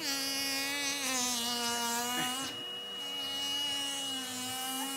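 Henry vacuum cleaner running, a steady motor drone with a high whine, its pitch dipping and shifting slightly a couple of times as the suction is blocked and freed.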